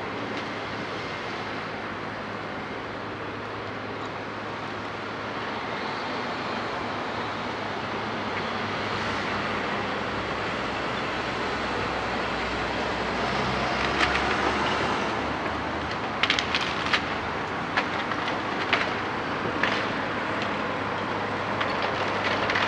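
Terex hydraulic excavator running steadily under load, its diesel engine and hydraulics humming and growing louder. From about two-thirds of the way in, a run of sharp cracks and knocks comes through as the sorting grab breaks roof timbers and debris falls.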